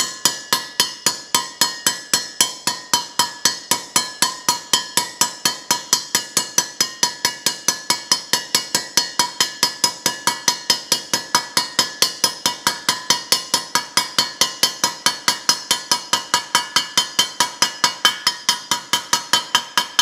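Steady, rapid hammer taps, about four a second, on the outer race of a new bearing as it is driven into the cast aluminium bearing housing of a Speed Queen Horizon washer. Each tap is a metal-on-metal clink with a short ring.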